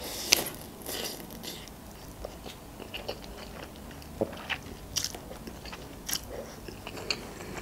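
Close-miked eating of instant noodles: noodles drawn into the mouth off chopsticks and chewed, with a string of short wet mouth clicks and smacks, the loudest just after the start.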